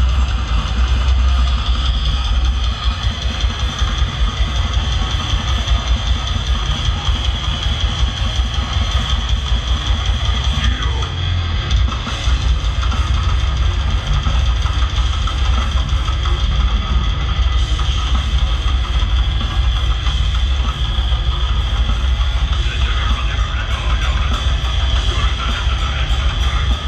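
Death metal band playing live at full volume: fast drum kit with heavy bass drum and distorted electric guitars.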